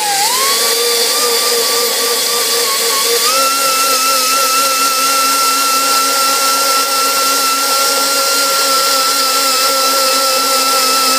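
High-speed grinder spinning a white 120-grit Roloc bristle disc at high RPM against a cast-iron engine block's head gasket deck, cleaning off old gasket material with light pressure. A steady high-pitched whine that dips briefly at the start and steps up in pitch about three seconds in.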